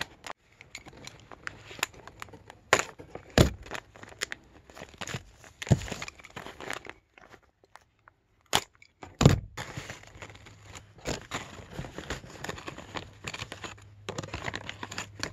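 Foil and plastic packaging of a carburetor rebuild kit crinkling and rustling as it is opened and handled, with a few sharp knocks, the loudest about two-thirds of the way through.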